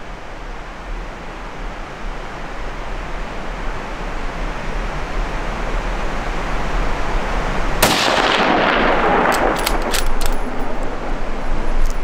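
A single hunting-rifle shot about eight seconds in, its report echoing off the hillsides and dying away over about two seconds, over a steady background hiss.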